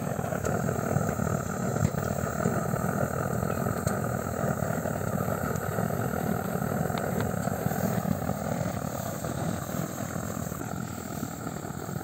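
Blowtorch burning steadily as the cooking flame under a pan of frying mushrooms, a constant rushing noise.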